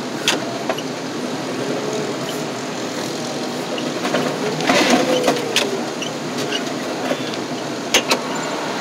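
Heavy-equipment diesel engine running steadily, heard from inside the loader's cab, with a few sharp metal knocks: one just after the start, a couple around the middle, and two close together near the end.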